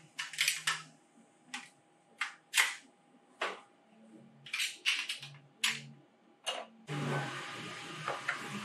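A dozen or so sharp plastic clicks and taps at uneven intervals as a 3D-printed face-shield headband is handled. About seven seconds in, a steady hiss comes in, with a few more clicks as a clear plastic visor is fitted to a headband.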